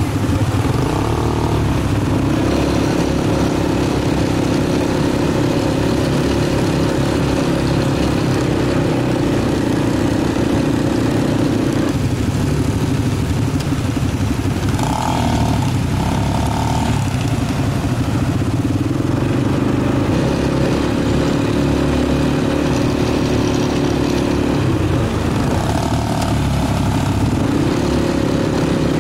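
Quad bike engine running under way, its pitch dropping and rising several times as the throttle is eased and opened again.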